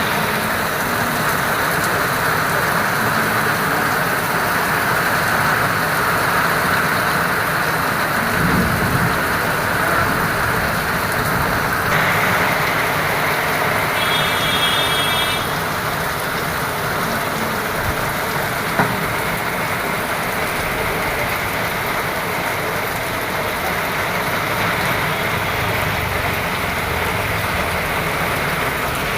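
Steady heavy rain falling, a continuous loud hiss of drops with no let-up.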